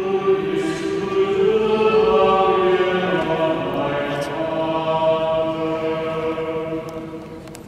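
Choir singing slow, sustained chant-like lines in a stone church, gradually growing quieter toward the end.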